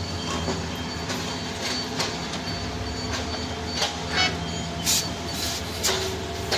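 Heavy diesel machinery running with a steady low drone, a reversing alarm beeping on and off, and several sharp metallic clanks.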